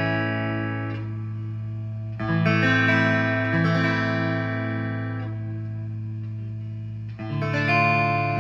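Clean electric guitar chords from a G&L Legacy Tribute's neck single-coil pickup through a Line 6 amp on a clean setting, each chord struck and left to ring and fade, with new chords about two seconds in and near the end. A steady low hum runs underneath, the single-coil hum the player points out.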